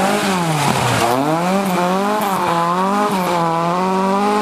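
Mk1 Ford Escort rally car's engine revving hard as it slides through a gravel corner and pulls away. The engine note dips about a second in, then climbs and holds high with a wavering pitch, over a hiss of tyres on loose gravel.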